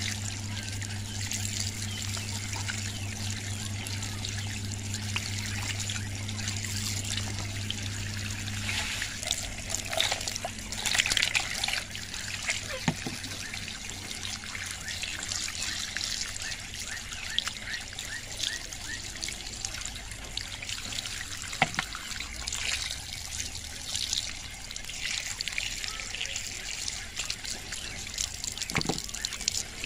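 A thin stream of running water pouring onto a pebbly stone surface and splashing over hands that rub and rinse a plucked waterhen, with a few sharper splashes. A steady low hum stops about nine seconds in.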